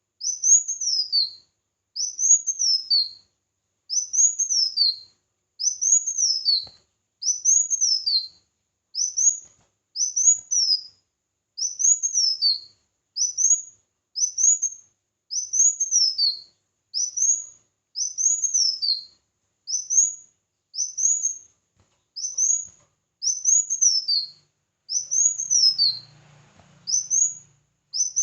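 A small songbird's high, thin chirping phrase, each a quick rise and fall in pitch, repeated over and over at an even pace of about one a second. A faint low hum sits under it briefly near the end.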